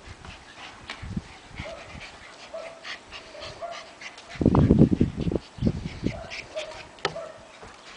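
White Puli puppies whimpering in many short, high squeaks, with scattered sharp clicks. A low rumbling thump about halfway through is the loudest sound.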